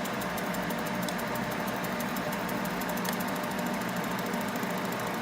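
Novecel C5 laser separating machine running as it lasers off an iPhone's back glass: a steady machine hum with fast, regular high-pitched ticking.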